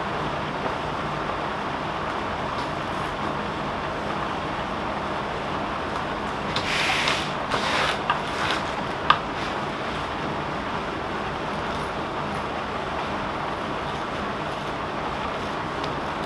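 Steady background hum and hiss, with a few seconds of rustling from a stiff diamond-painting canvas being handled and cut with scissors about halfway through, ending in one sharp click.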